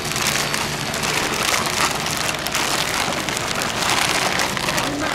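Plastic bag crinkling and rustling as gloved hands knead sticky sorghum hotteok dough inside it, a dense run of fine crackles.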